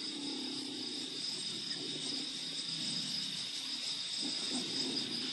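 Steady chorus of chirping insects, a continuous high trill, with a lower, uneven sound underneath.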